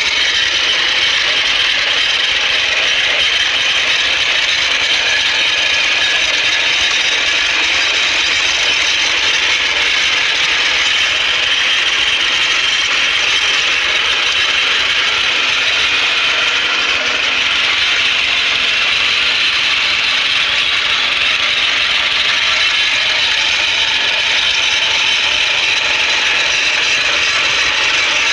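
Walk-behind rotary tiller's small engine running steadily under load while its tines churn through stony soil.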